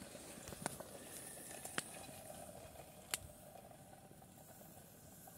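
Small twig campfire burning under a covered frying pot: faint crackling over a soft steady hiss, with a few sharp pops.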